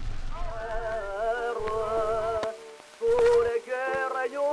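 Melody from an old gramophone-era recording: a singing or humming voice in held notes with vibrato, with a few sharp surface clicks.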